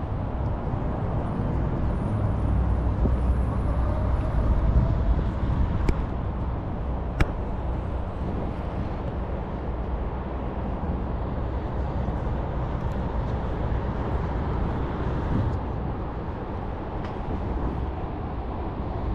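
Road traffic going past as a steady rumble, swelling as a vehicle passes a few seconds in, with two short sharp clicks a little over a second apart.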